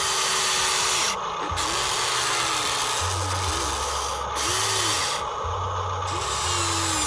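Small electric motors of a toy RC excavator whirring, cutting in and out every second or so as different functions are worked.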